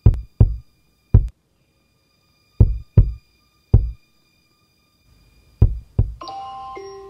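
Deep bass thumps in an uneven rhythm, some in pairs like a heartbeat, over a faint steady high tone. Just after six seconds a smartphone alarm starts ringing: a bright melody like a marimba.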